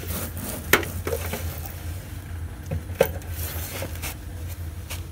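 Handling noise as cables and equipment are shifted about, with two sharp knocks, one just under a second in and one about three seconds in, and some lighter clatter, over a steady low hum.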